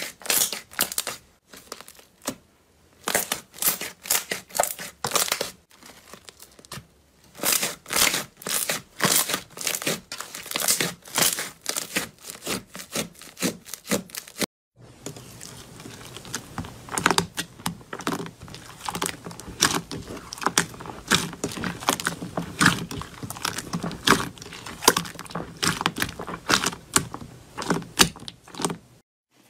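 Hands squeezing and pressing glossy slime, giving sharp crackling and popping in bursts about once a second. About halfway it changes to a denser, fuller run of crackles and pops as a hand works a thicker fluffy slime.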